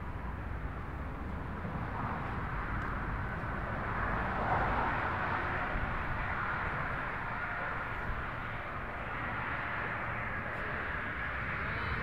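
Steady outdoor background noise: a broad rush with a low rumble underneath, swelling slightly about four seconds in.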